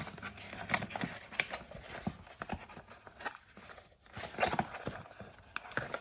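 Paper and cardboard handling: papers being worked out of an old cardboard box, rustling and crinkling, with many sharp clicks and taps.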